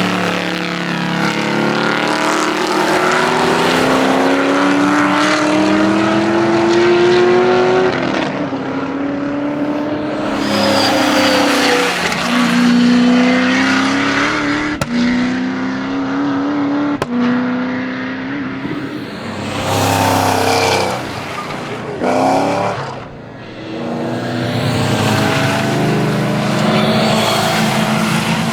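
First-generation Camaro V8 at full throttle, its engine note rising through each gear and dropping at the shifts. A sharp bang comes with some of the gear changes.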